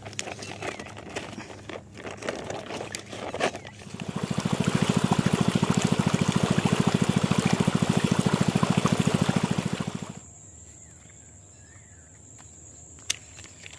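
Water gushing from a pump's layflat discharge hose into a ditch, loud and pulsing quickly and evenly. It starts about four seconds in and cuts off at about ten seconds. Before it there is rustling of a plastic bag being handled.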